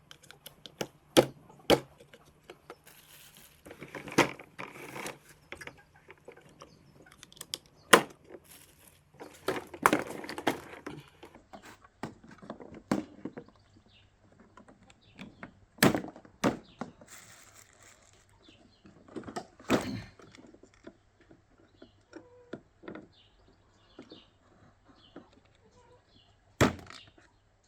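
Parts of an electric lawn mower being handled and fitted together: scattered sharp clicks and knocks, with rustling in between.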